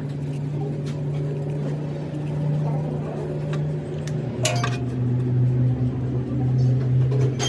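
A workshop machine motor, most likely the lathe, hums steadily and drops slightly in pitch about halfway through. A few light metal clinks sound over it, the sharpest about four and a half seconds in.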